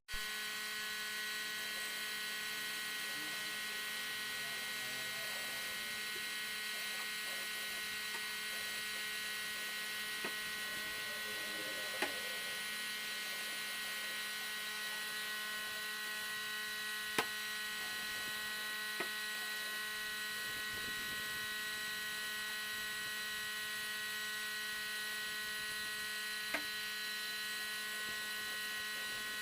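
Electric power tool motor running at a steady speed, a constant hum and whine that never changes in pitch, with a few sharp clicks scattered through it.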